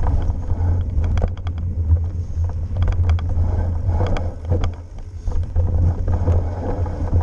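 Mountain bike riding fast down a rough dirt trail, heard from a camera on the rider: a steady low rumble of tyres over the ground and air rushing past the microphone. Sharp clicks and rattles from the bike come in clusters as it hits bumps and roots.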